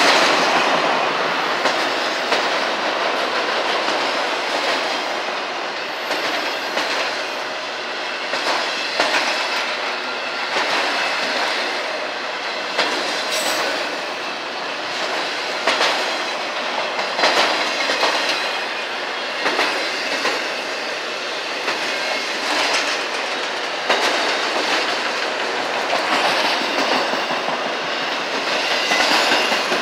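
Freight train of autorack cars rolling past: a steady noise of steel wheels on rail, broken by frequent clicks and knocks as the wheels cross rail joints.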